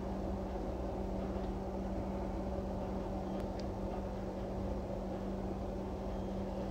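A steady low mechanical hum with one constant tone.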